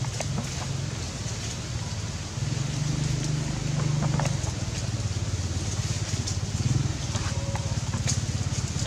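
A steady low engine drone, with a few faint clicks over it.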